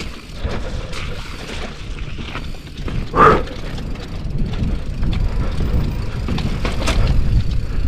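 Mountain bike rolling down bare rock slabs: tyres rumbling on the rock, with wind on the helmet camera's microphone and scattered clicks and rattles from the bike. A short louder sound about three seconds in, and the rumble grows louder as the bike speeds up in the second half.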